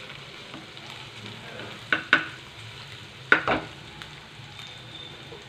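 Chopped onions sizzling steadily as they fry in mustard oil in a nonstick kadhai, being browned to a reddish colour. A spatula scrapes and knocks against the pan in two quick pairs, about two seconds in and again a little past three seconds.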